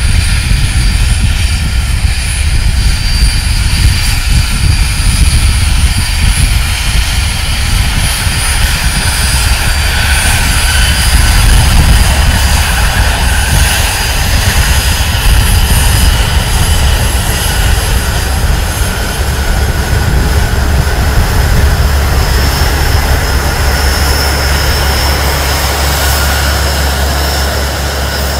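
BAe 146-200's four Lycoming ALF 502 turbofans running at taxi power as the airliner taxis and turns: a steady high whine over a deep rumble.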